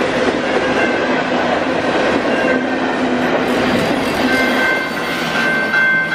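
Covered grain hopper cars of a freight train rolling past close by, with a steady loud rolling noise of steel wheels on rail. About four seconds in, a high steady ringing tone joins the rolling noise.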